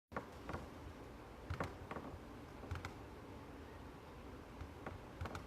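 About a dozen light clicks and taps, unevenly spaced, over a faint steady hiss.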